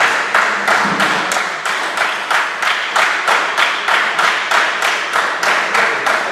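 Hands clapping in a steady rhythm, about three claps a second.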